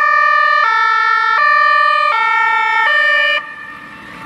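Two-tone ambulance siren, a high and a low note taking turns about every three-quarters of a second. It cuts off about three seconds in, and a broad rushing hiss rises after it.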